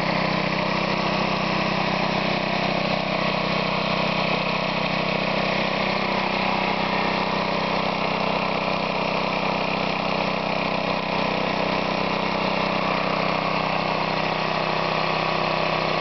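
Briggs & Stratton 3.5 hp lawnmower engine running steadily at about a third throttle on its governor, belt-driving a homemade air compressor that is pumping an air tank up past 80 psi.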